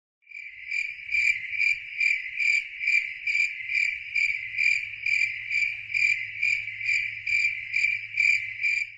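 A cricket chirping in an even, steady rhythm of about two chirps a second, over a faint low hum.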